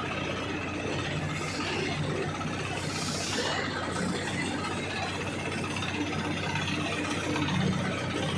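Engine of a crane running steadily, a low even hum with a short rise in noise about three seconds in.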